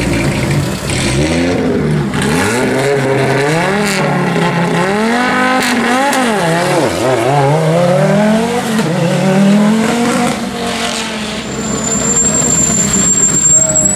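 Historic rally car engine revved in repeated blips, its pitch rising and falling over and over, held on the throttle while waiting at the stage start.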